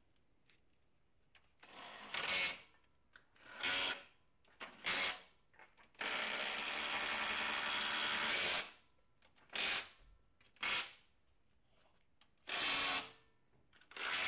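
Cordless impact wrench running up and tightening bolts under a car: seven short bursts and one longer run of about two and a half seconds in the middle.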